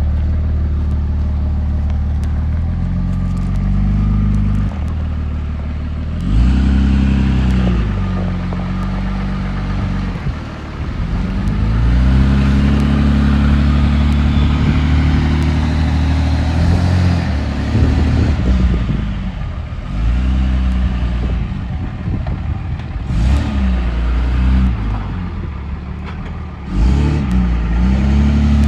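Third-gen Dodge Ram's Cummins diesel engine revving up and dropping back again and again under load, as the truck is worked backwards through mud, with a long held rev in the middle.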